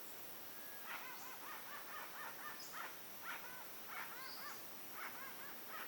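Unidentified animal, which the uploader suspects is a bird, calling in short runs of quick arched notes about once a second. Fainter, thin high notes sound above them.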